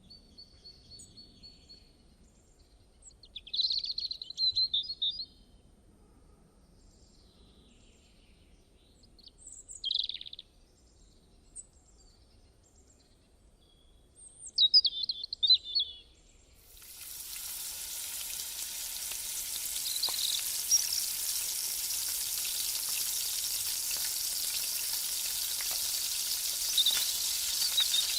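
Birds chirp in short scattered bursts over a quiet background. About two-thirds of the way in, loud steady sizzling starts suddenly as chicken deep-fries in hot oil.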